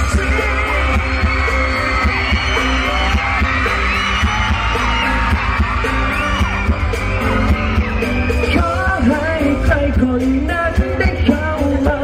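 Live band playing amplified pop music through a concert PA, with singing and a crowd of fans screaming and singing along close to the recording phone. The bass is heavy and steady.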